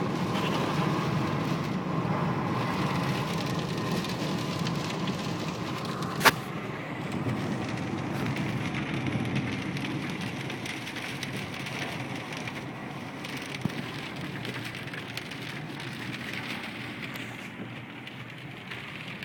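Steady rain on a car, heard from inside the cabin, with the car's running noise beneath; it slowly grows quieter. One sharp click sounds about six seconds in.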